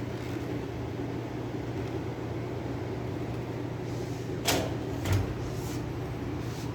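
HP LaserJet M600-series laser printer running with a steady low hum, then two sudden knocks about half a second apart a little over four seconds in: a sharp one, then a deeper one.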